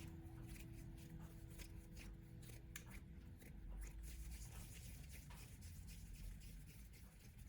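Faint scraping, rubbing and light clicks of small handling sounds, with a held music note dying away over the first half.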